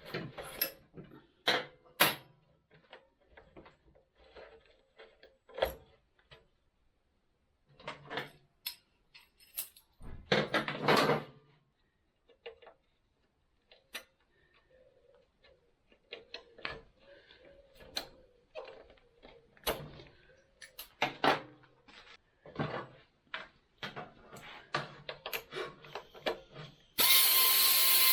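Metal tools and parts clinking and knocking at irregular intervals as a motorcycle is dismantled, with a short power-tool run about ten seconds in and a loud, steady power-tool run with a whine near the end.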